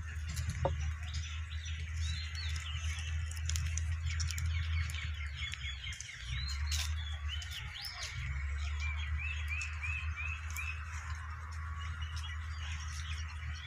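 Small birds chirping and calling all around, with a quick run of about six repeated rising chirps a little past the middle. A steady low rumble and scattered faint clicks lie underneath.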